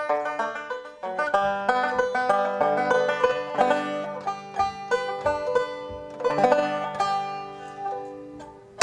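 Banjo playing a brisk instrumental tune in quick picked notes, fading out near the end.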